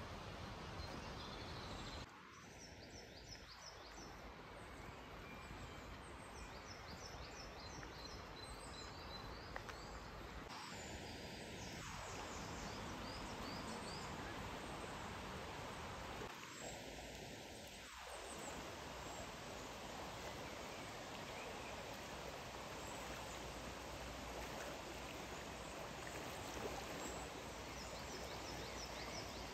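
Steady rush of a flowing river, with small birds chirping in short series in the first third and again near the end.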